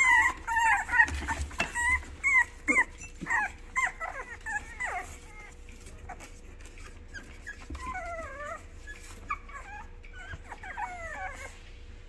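Several young Boston terrier puppies whimpering and squeaking in short, high cries that rise and fall. The cries come thick and fast for the first five seconds, then fewer and softer.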